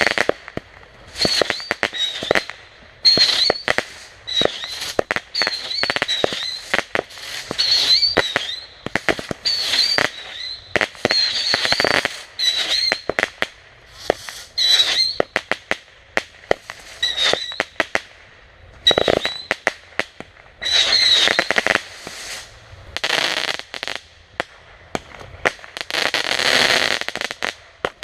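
Consumer fireworks going off in rapid succession: clusters of sharp pops and crackling about once a second, many carrying a short, high, wavering whistle.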